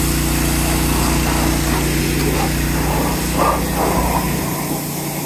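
Small gasoline engine of a pressure washer running steadily under load, with the hiss of the water spray, the low engine hum easing slightly near the end.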